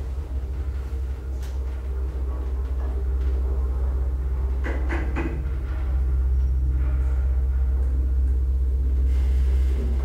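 1964 ASEA-Graham traction elevator car travelling in the shaft: a steady low hum and rumble from the ride, with a few short clicks about one and a half, five and nine seconds in.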